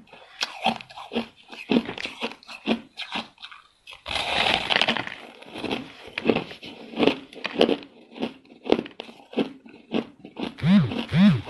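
Close-miked crunching of soft, powdery frost-like ice being bitten and chewed: many quick crunches, with a longer crumbling crunch about four seconds in. Near the end come two short low tones that rise and fall.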